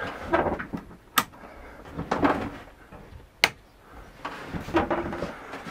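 Two sharp clicks about two seconds apart: light switches being flicked as the lighting is changed from everything on to the softbox alone.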